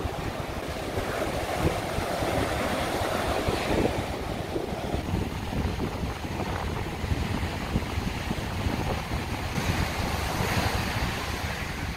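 Ocean surf washing onto a sandy beach, with wind buffeting the microphone in a rumbling, fluctuating rush.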